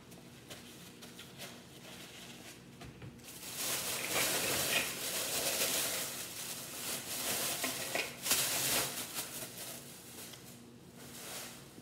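Rustling and crinkling of a paper napkin and a plastic bag being handled, from about three seconds in to about nine seconds in, as greasy fingers are wiped.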